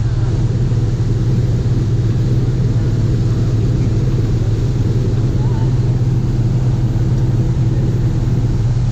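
A boat's engine running steadily, a constant low drone that does not change in pitch or level.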